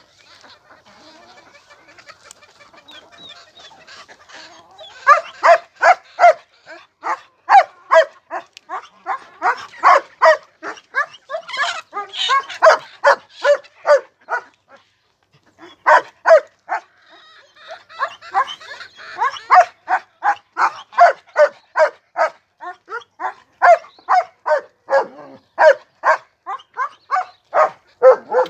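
An animal calling in fast runs of short, sharp calls, about two a second, in two bouts with a short pause between them, after a quieter start.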